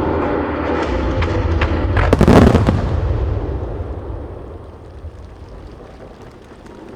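Aerial fireworks shells bursting in a dense volley that peaks about two seconds in. Their booms and crackling then die away, with scattered faint crackles near the end.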